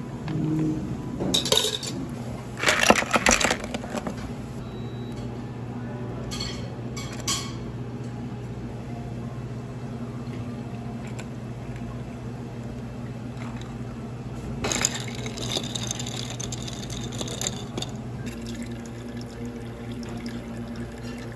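Iced drinks being made in tall glasses: ice cubes clinking as a drink is stirred, and liquid poured over ice. Loud bursts of clatter come a couple of seconds in and again about two-thirds of the way through, over a steady low hum.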